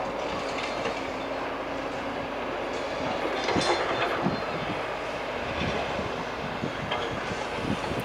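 Heavy demolition machinery running, with clanking and knocks of debris, loudest about three and a half to four and a half seconds in.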